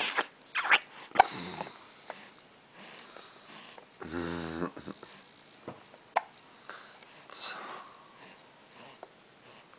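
Short breathy sniffs and puffs, bunched in the first two seconds, with a brief low hum about four seconds in and a few faint clicks.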